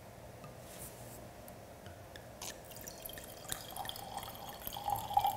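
White wine poured from the bottle into a wine glass, after a few light clicks and taps of glass.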